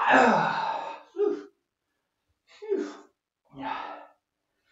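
A man groaning and grunting with effort: one long, loud groan falling in pitch, then three short grunts with silence between.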